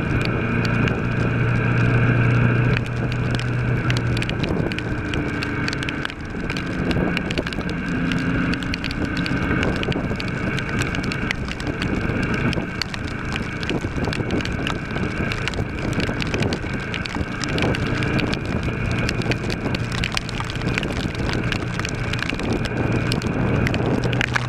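Kawasaki ER-6 parallel-twin engine running under way, its note changing pitch between about six and ten seconds in, under heavy wind noise on the microphone and pouring rain.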